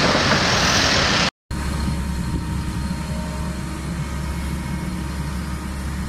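A loud rushing hiss for about the first second, cut off abruptly. Then the heavy diesel engines of an excavator and a dump truck run with a steady low drone.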